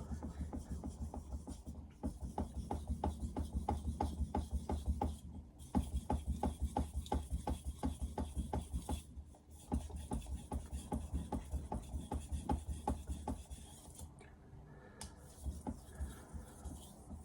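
Steel blade of a Victorinox 210mm knife being stroked over a Naniwa Chosera 3000 whetstone: quick repeated scraping strokes, a few a second, in runs with short pauses between them, growing fainter after about fourteen seconds.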